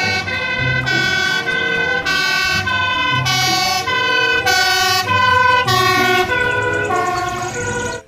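Fire engine's two-tone siren, loud, switching back and forth between a high and a low note about every half second.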